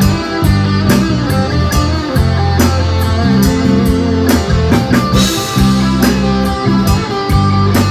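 Instrumental stretch of a band song: guitar and drum kit over a heavy, steady low bass line, with no singing.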